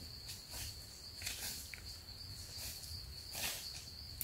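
A steady, high-pitched insect drone, with a handful of irregular footsteps rustling through dry leaf litter.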